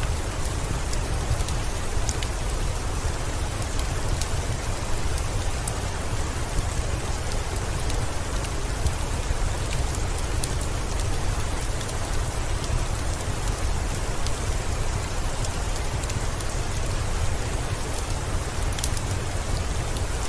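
Steady heavy rain falling over a low rumble, with scattered sharp pops and crackles from a wood fire in a fireplace; a few louder pops come near the end.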